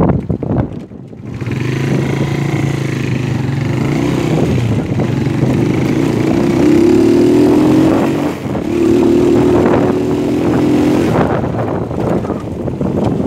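Kuba Gold 170FXI motorcycle engine pulling away along a dirt track, rising in pitch as it revs. It dips briefly about eight and a half seconds in, picks up again, and eases off near the end, with wind noise on the microphone.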